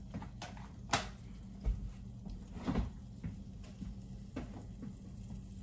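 Refrigerator door being opened and things handled in the fridge: a few scattered knocks and clicks over a low steady hum.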